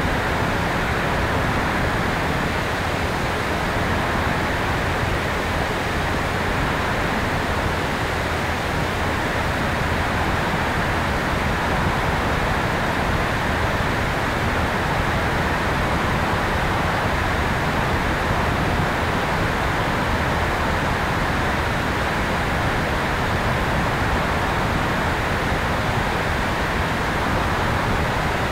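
Steady rushing wind noise on the tail camera of an RC electric airplane in flight, with the airplane's motor and propeller hum mixed into it.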